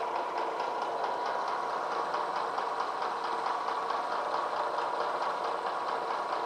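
Vertical milling machine taking a slow cut in a bronze casting with a large, dull end mill: a steady motor-and-spindle hum with a fast, even chatter from the cutter.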